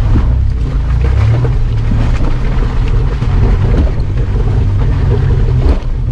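Mitsubishi Pajero's engine running under load as the off-road truck drives through a muddy forest track, with mud splashing up over the bonnet. A steady low rumble with scattered knocks and jolts from the rough ground.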